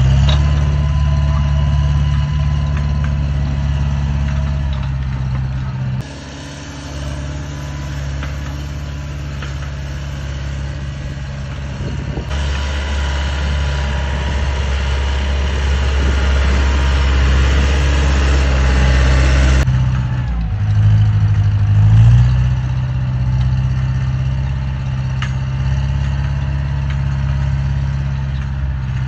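Lovol tractor's diesel engine running steadily while pulling a cultivator through ploughed soil. The sound changes abruptly three times where shots are cut together.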